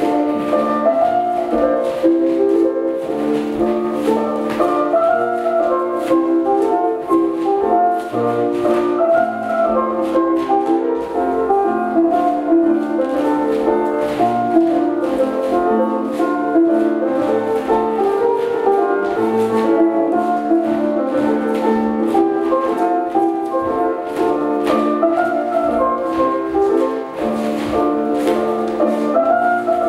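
Recorded Scottish country dance band music playing a strathspey, a steady tune with a regular beat.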